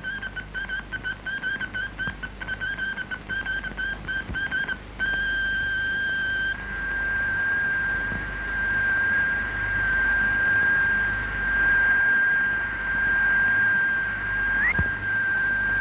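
Radio Morse code: a high tone keyed in short and long beeps for about five seconds, then held as one steady unbroken tone, with a brief upward chirp near the end.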